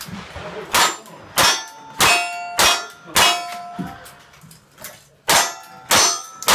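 Metal struck hard again and again, each blow ringing on: five clangs about 0.6 s apart, a pause of about two seconds, then two more at the same pace.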